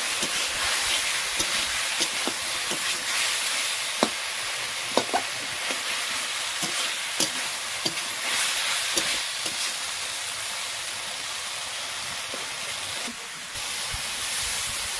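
Small fish frying in oil in a metal kadhai, with a steady sizzle, while a metal spatula stirs them, scraping and knocking against the pan with scattered sharp clicks.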